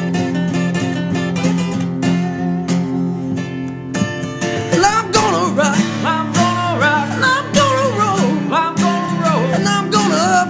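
Country-rock band playing an instrumental break: evenly strummed acoustic guitar chords, joined about halfway through by a lead melody of sliding, bending notes.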